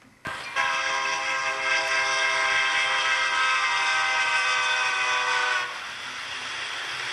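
An HO-scale model train's locomotive horn, played through its sound system, gives one long steady blast of about five seconds at a grade crossing. The horn cuts off, and the steady running noise of the approaching train carries on.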